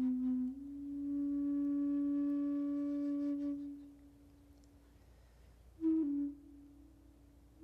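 Soft background music: a slow melody of long held notes in a flute-like tone. One long note fades away about four seconds in, and a short note sounds near the end.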